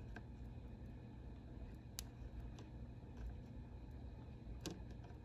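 Quiet room tone: a faint steady low hum with a few soft ticks, one about two seconds in and another near the end.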